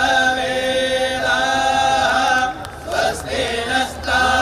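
A group of voices chanting a devotional invocation in unison, on long held notes that break off briefly about two and a half seconds in and then resume.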